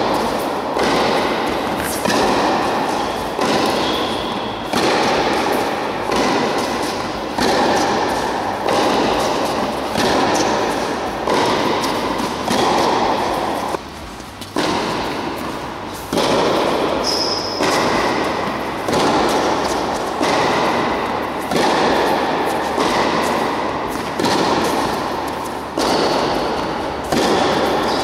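Tennis ball struck by rackets and bouncing on an indoor hard court during a rally: a sharp hit about once a second, each dying away in the hall's echo, with a brief gap about halfway through.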